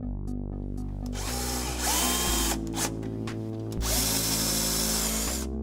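Bosch cordless drill/driver driving number 6 flathead screws through metal door brackets. It runs in two bursts of whirring, the first starting about a second in with a short rising whine, the second around four seconds in.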